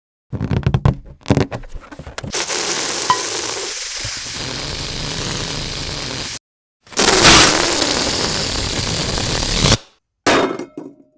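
A string of edited sound effects: a quick run of clattering knocks, then two long stretches of steady hissing noise, each cut off abruptly, then a couple of short bursts near the end.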